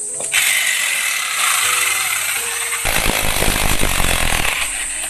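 Electric hammer drill running, its hammering heaviest in the second half, boring through to give the yard's standing water a way to drain. Background music plays underneath.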